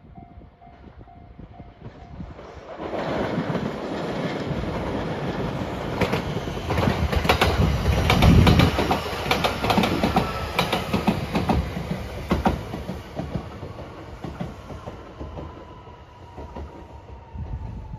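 JR West 227 series electric local train passing: the sound builds over a few seconds, its wheels clicking rapidly over the rail joints as it goes by, then fades away. A faint tone falls slowly in pitch near the end as it recedes.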